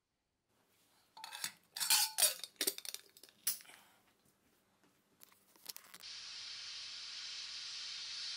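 Hawkins stainless-steel pressure cooker lid being handled and fitted: a run of metal clanks and clinks, one left ringing briefly. About six seconds in, a steady hiss starts: the gas burner lit under the cooker.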